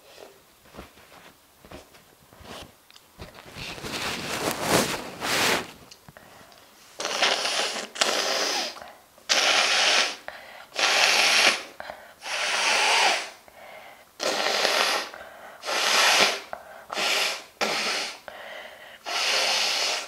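A woman's forceful nasal blasts. After a few small clicks and a rising stretch of breathy noise, about ten loud rushes of air through the nose follow in quick succession, each around a second long.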